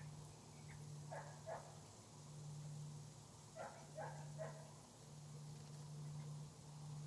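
Faint short animal calls, two and then a moment later three, over a low steady hum that drops out briefly every second or two.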